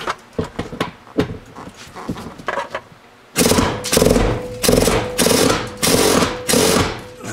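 Impact wrench with a Torx bit hammering in about four short bursts on a stuck Torx bolt, which does not break loose. Before the bursts there are scattered light clicks and knocks.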